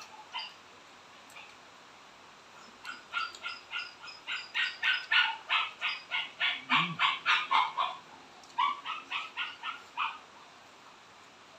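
An animal calling in short, sharp, repeated calls, about four a second, in a long run, then after a brief pause a shorter run.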